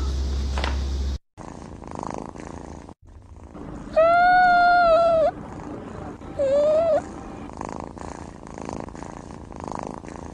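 A kitten mewing twice over soft purring: a long, level mew about four seconds in, then a shorter one that rises in pitch. Before that, the first second holds a steady low hum that cuts off.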